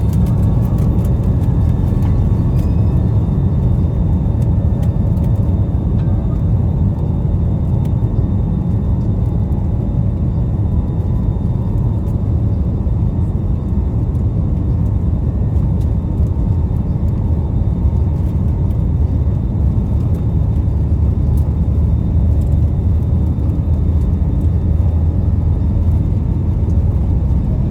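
Airbus A320 taking off, heard from inside the cabin: a steady, loud low roar of the jet engines at take-off thrust with a rushing noise, a few faint whining tones fading in the first couple of seconds.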